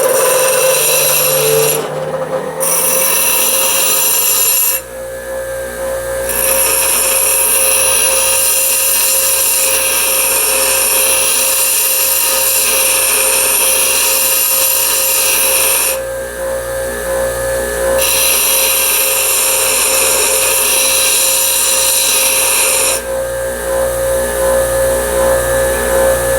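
Belt sander running with a steady whine while a forged steel knife blank is ground against the belt in several passes, the longest about ten seconds, with short breaks where only the motor is heard.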